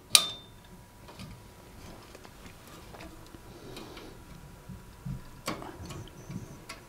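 A hotplate element's metal rim and brackets being seated in a cooker's metal hob frame: one sharp clink right at the start with a brief ring, then light scattered taps and clicks as it is handled into place.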